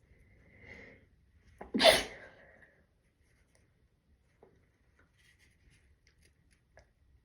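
A person sneezing once: a soft build-up about a second in, then one short, sharp sneeze about two seconds in.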